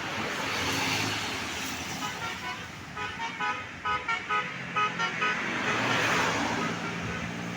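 Basuri telolet bus horn playing a quick tune of short, stepped notes over passing traffic noise, from about two seconds in until about five seconds.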